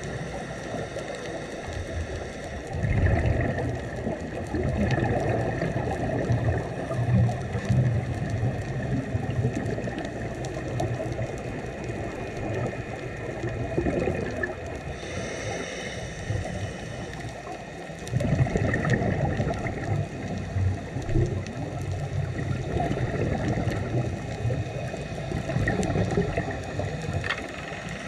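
Scuba diver breathing through a regulator underwater: long surges of exhaled bubbles gurgling, starting about three seconds in and again around eighteen seconds, with a brief higher hiss between them.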